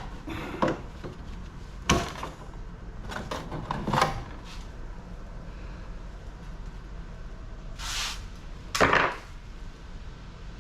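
Scattered metal knocks, clunks and scrapes from handling and prying at parts of an air conditioning unit being dismantled for scrap: about six separate sharp hits and a short scraping swish.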